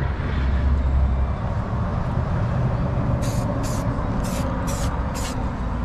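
Aerosol spray paint can hissing in five short bursts about half a second apart in the second half, as paint is sprayed through a stencil, over a steady low rumble.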